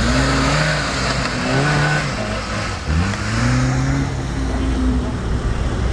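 Small Suzuki 4x4's engine revving up and down under load as it climbs out of a muddy trench, its pitch rising and falling several times over a steady low rumble.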